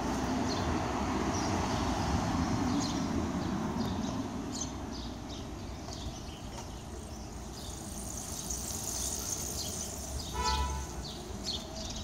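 Street traffic: a car drives past close by, its tyre and engine noise easing after about four seconds. Short high chirps sound throughout, and a brief pitched tone comes about ten and a half seconds in.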